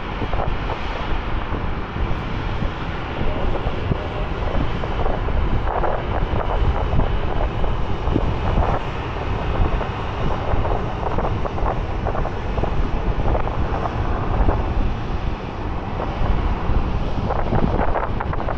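Jet airliner engines running steadily, a deep continuous rumble, with wind buffeting the microphone.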